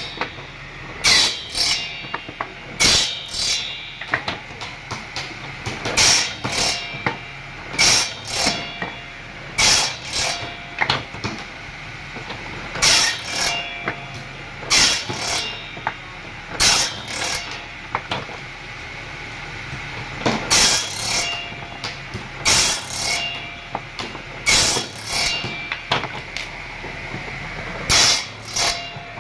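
Table saw with a circular blade cutting pallet-wood boards into blocks. The blade runs steadily, and each pass through the wood makes a short, loud cut, one every second or two, over and over.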